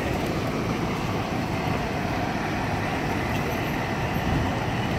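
Steady street noise of traffic and vehicle engines running.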